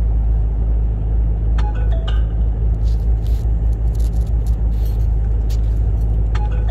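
Steady low drone of a lorry's engine and tyre noise heard from inside the cab while driving slowly, with a few light clicks or rattles in the middle and near the end.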